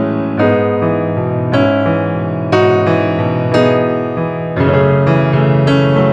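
Background music: electric piano playing chords, with a new note struck about once a second.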